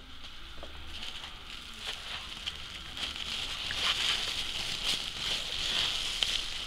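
Bubble wrap crinkling and crackling as it is folded and wrapped by hand, with scattered sharp little crackles; it gets somewhat louder after the first few seconds.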